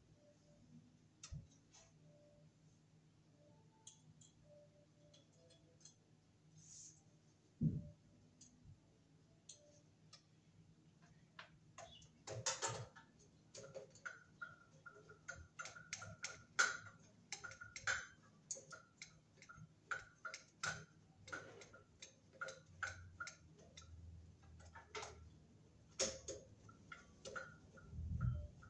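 Faint, irregular metallic clicks and ticks, coming several a second in the second half, as a fan-blade screw is tried in a ceiling fan's metal blade mount. The screw won't go in. There is a single dull thump about eight seconds in.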